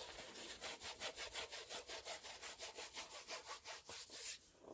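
Rapid, even rubbing or scraping strokes, about six a second, stopping shortly before the end.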